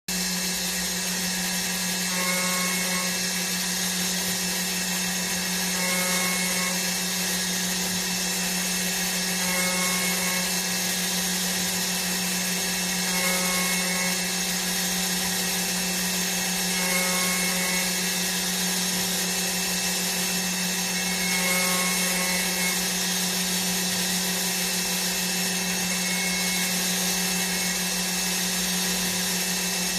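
Automatic CNC machine running with a steady motor hum and a constant whir, with a brief higher-pitched pattern that returns about every four seconds as the machine cycles.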